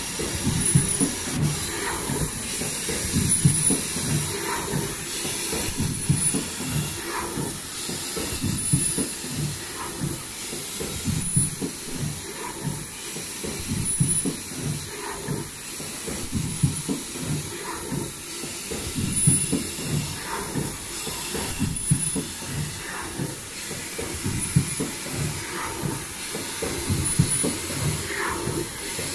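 Automatic folding face-mask machine with valve welding, running in continuous cycles: a fast rhythmic mechanical clatter with a steady hiss. Short high tones and light clicks repeat about every second and a half as each mask cycle runs.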